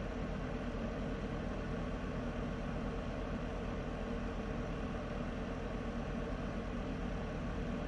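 Space heater running steadily: an even noise with a low hum underneath.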